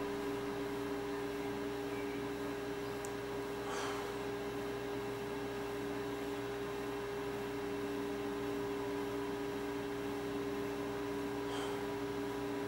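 A steady electrical hum, several low tones held unchanging over a faint hiss, with two faint brief sounds about four seconds in and near the end.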